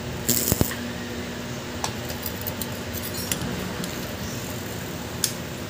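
A brief crackle from a stick-welding arc about half a second in, as a nut is welded onto a stainless steel tube. Then scattered light metallic clinks as a hammer taps the freshly welded tube.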